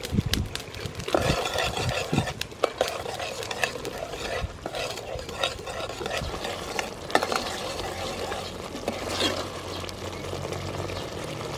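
Metal ladle stirring thick curry broth in a large metal pot, with irregular scrapes and clinks of the ladle against the pot.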